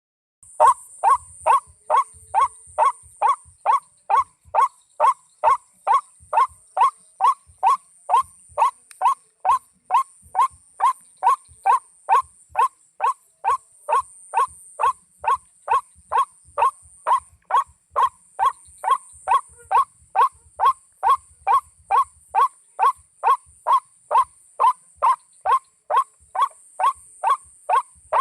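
White-breasted waterhen's 'ruak' call repeated without a break at a very even pace, just under two calls a second, as from a looped lure recording used to call waterhens in. A faint steady high hiss runs underneath.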